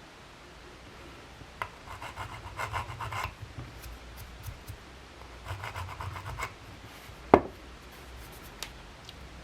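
Two spells of quick back-and-forth rubbing on the metal of a rusty vintage Diana Model 2 air pistol, worked over a faint stamped marking, then one sharp knock about seven seconds in.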